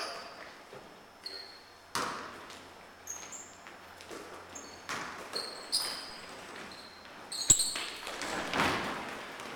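A basketball bouncing on an indoor court, with a sharp thud every second or few, and sneakers squeaking briefly on the floor between the bounces.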